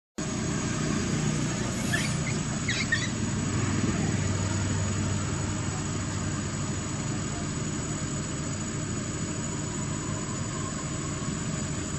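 Steady outdoor background noise: a low rumble like a motor running off-screen under a thin, steady high whine, with a few short high squeaks about two to three seconds in.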